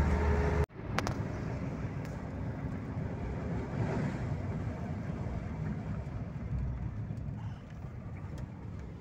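Steady road, engine and wind noise inside the cab of a moving VAZ-21213 Niva at highway speed, an even rush without distinct tones. Near the start the sound drops out abruptly for an instant, then picks up again.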